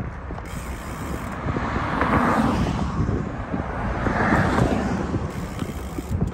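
Cars passing on the road, two swells of tyre noise that rise and fall about two and four seconds in, over a steady wind rumble on the microphone of a moving rider.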